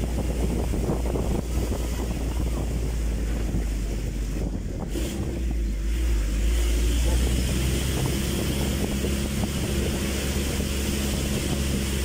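Wind buffeting the microphone in the open cargo bed of a moving mini truck, over the truck's steady engine running. From about halfway through, a steady engine drone comes through more clearly.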